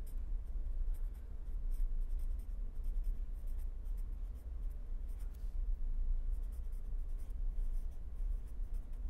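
A pen writing on paper: short, scratchy strokes coming in irregular runs. Under it runs a steady low hum.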